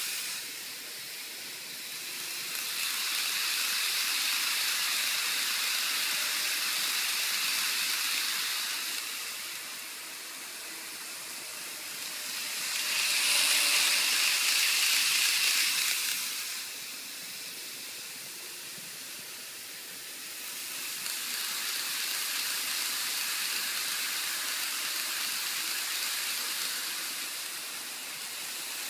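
N-gauge model Shinkansen trains running on plastic sectional track: a high, hissing whir of small wheels and motors that swells as a train passes close and fades as it moves away, three times, loudest about halfway through.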